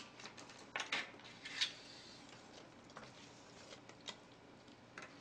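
Chopsticks and bowls clinking against a stainless-steel shabu-shabu pot and tableware as noodles are served: a few short scattered clicks, the loudest about a second and a half in, then fainter ticks.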